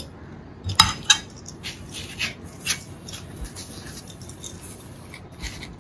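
A steel serving spoon clinking against a ceramic bowl and plate while chicken curry is served: two sharp clinks about a second in, then lighter taps and scrapes.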